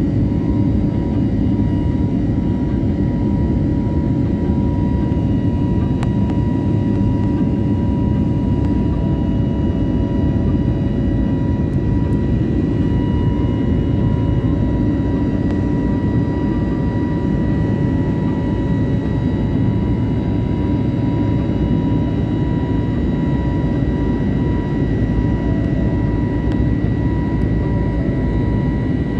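Jet airliner cabin noise during the climb after take-off: a loud, steady rush of engine and air noise, heaviest in the low end, with thin steady high tones running through it.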